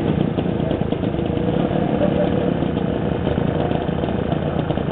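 Manet M-90 motorcycle's small two-stroke engine idling steadily.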